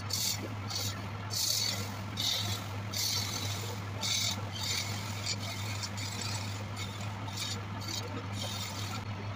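Small electric wood lathe running with a steady motor hum, while wood spinning on it is scraped or sanded in irregular hissing strokes about once or twice a second.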